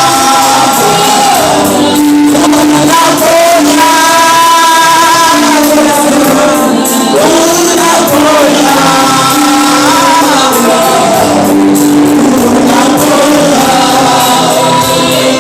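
Swahili gospel worship song: singers holding long sung phrases over a backing band.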